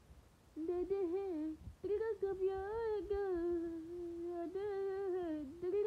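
A person humming a tune, holding long notes that bend up and down, starting about half a second in with a few short breaks.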